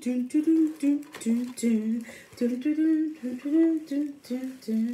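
A woman humming a tune: a run of short held notes stepping up and down. Faint rustles and clicks of a cardboard box being opened come through underneath.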